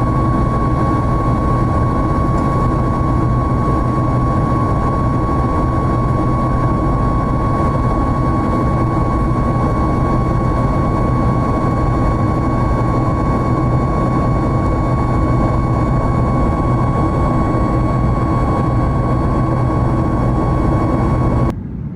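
Boeing 737 MAX 8 with CFM LEAP-1B engines in cruise, heard from the cabin: a steady, even rush of engine and airflow noise with a low hum and a steady high tone. It drops away suddenly near the end.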